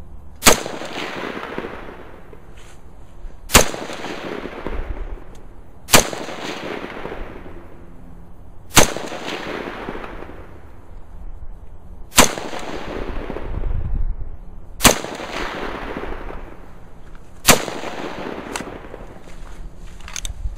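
Seven single shots from an AR-15 rifle in slow, aimed fire, spaced two and a half to three and a half seconds apart. Each sharp crack trails off in an echo.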